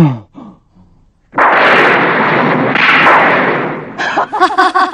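Cartoon magic blast sound effect: a sudden loud rushing burst about a second in that swells twice over nearly three seconds, followed near the end by a laugh.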